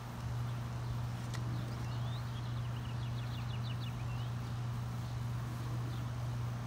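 A steady low hum, with a small bird singing a quick trill of repeated high notes for about two seconds, starting a second and a half in.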